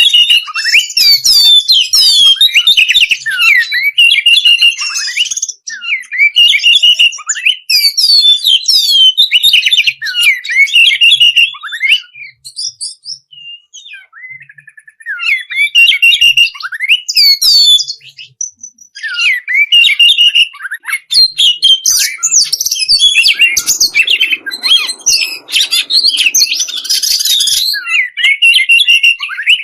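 Songbird singing a fast, varied song of chirps, trills and whistles in long bursts, with a break of a couple of seconds about halfway through. This is masteran birdsong, the morning song that keepers use to train caged birds to sing.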